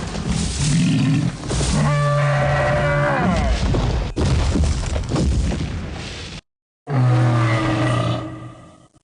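Film stegosaurus vocalisation sound effect: deep bellowing calls, one sliding down in pitch, over a low rumble. The sound cuts off for a moment about six and a half seconds in, and then a second bellowing call starts.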